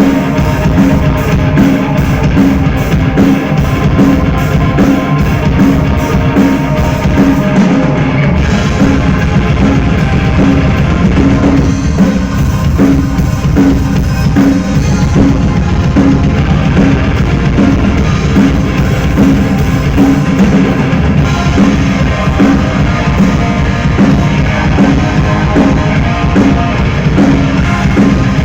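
Rock band playing live through a PA: drum kit with a steady beat, with bass and electric guitar.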